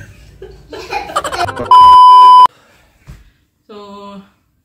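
Loud, steady electronic beep: one pure high tone held for under a second that cuts off suddenly, after a moment of laughter and chatter.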